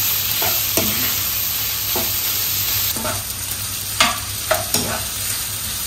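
Chicken pieces sizzling in a little coconut oil in a nonstick wok, stirred with a wooden spatula that scrapes and knocks against the pan several times. The sharpest knock comes about four seconds in.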